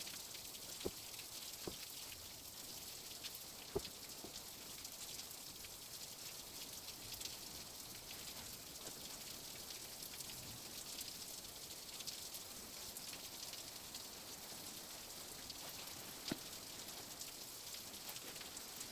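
A steady, even hiss, like light rain, with a few sharp clicks: about one a second near the start, then another well into the second half.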